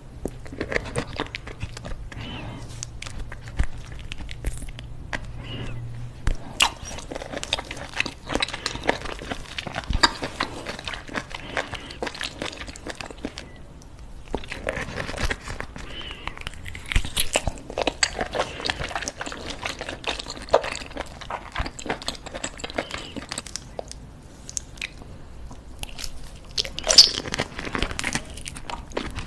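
Close-miked chewing and biting of raw octopus: dense, irregular mouth clicks and crunches.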